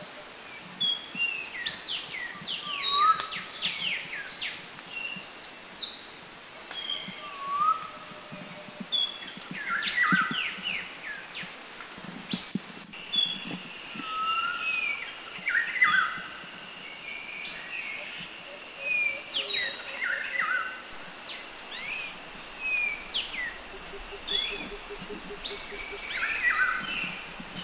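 Several birds chirping and whistling in short, quick rising and falling calls over a steady high insect buzz.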